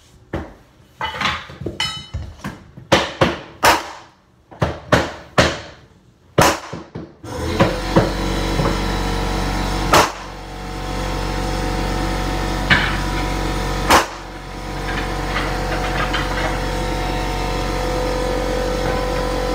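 Irregular hammer blows on hardwood flooring, about a dozen sharp knocks in the first seven seconds. About seven seconds in, a steady droning noise takes over, broken by a few more single knocks.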